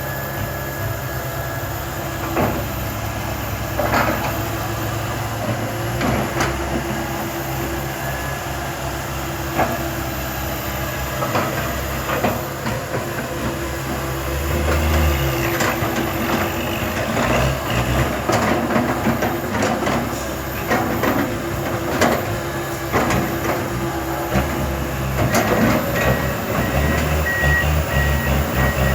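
Komatsu PC160LC hydraulic excavator working: the diesel engine and hydraulics run steadily under load, with repeated metallic clanks from the tracks and bucket. A vehicle's reversing alarm starts beeping near the end.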